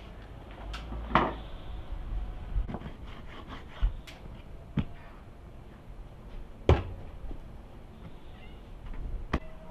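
Knife slicing raw red meat on a wooden cutting board, with several sharp knocks as the blade strikes the board at irregular intervals.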